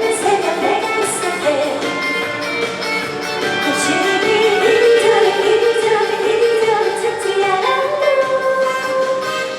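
Trot song playing over a band backing track, with a woman's voice singing long held notes.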